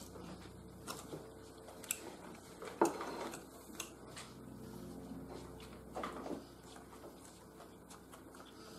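Metal fork tapping and scraping against a ceramic plate a few times while eating, the loudest clink about three seconds in, over a faint steady hum.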